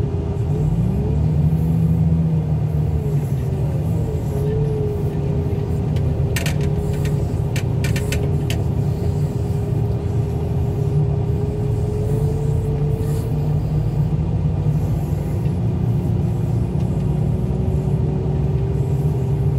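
Front-end loader's diesel engine running steadily as the machine drives, with a whine that rises in pitch about a second in and then holds. A short run of sharp rattling clanks comes about a third of the way through.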